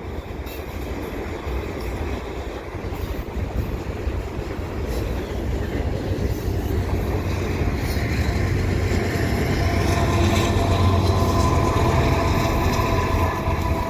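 Freight train passing close by, boxcars rolling over the rails with a steady rumble of wheels. Over the second half a mid-train (DPU) diesel locomotive draws near, and its engine drone and steady tones grow louder.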